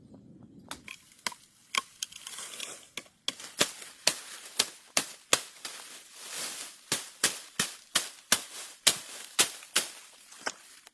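A run of sharp knocks or chops at about two a second, starting just under a second in and stopping near the end.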